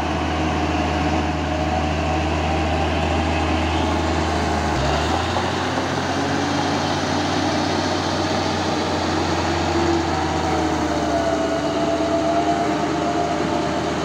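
Caterpillar D6G crawler bulldozer's diesel engine running steadily under work. Its low note shifts about five seconds in, and a wavering high whine rides over it.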